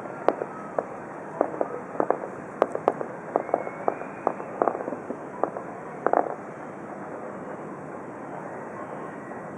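Fireworks bursting at a distance: a quick, irregular string of sharp pops and bangs over the first six seconds, ending in a small cluster, then only a steady background hiss.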